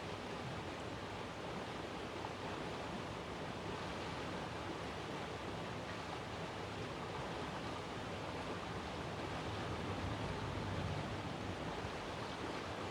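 Steady rushing outdoor background noise, with a low rumble swelling slightly about ten seconds in; no siren tone is sounding.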